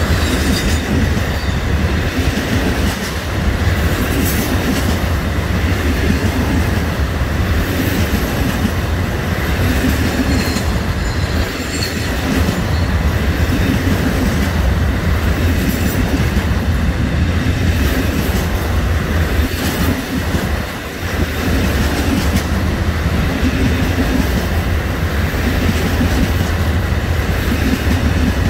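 Loaded car-carrier wagons of a long freight train rolling past close by: steady wheel-on-rail noise with an irregular clickety-clack of wheels passing over the rails.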